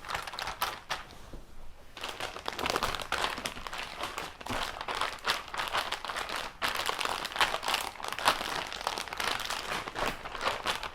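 Plastic zip-top bag crinkling and rustling as it is squeezed and tossed to work marinade through the chicken pieces and peppers inside. There is a short lull about a second in.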